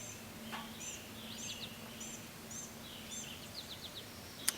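Faint backyard birdsong: a blue-gray gnatcatcher giving a series of thin, very high, short notes about twice a second, with other lower chirps from nearby birds and a faint steady low hum.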